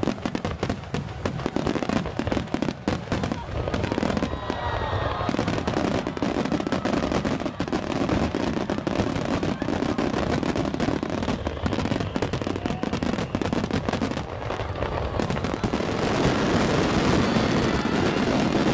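Fireworks finale: a continuous barrage of shell bursts, rapid overlapping bangs and crackling with no pause between them, growing denser near the end.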